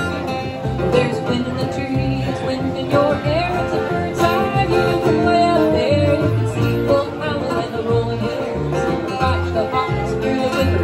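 Acoustic country band playing: two acoustic guitars strumming and an upright bass plucking, with a woman singing lead.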